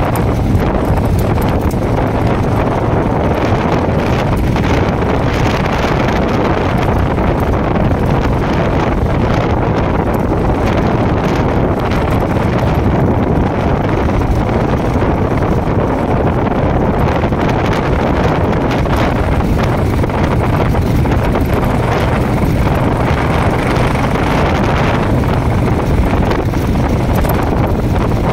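Royal Enfield Himalayan's 411 cc single-cylinder engine running steadily under way on a dirt track, mixed with heavy wind noise on the phone's microphone.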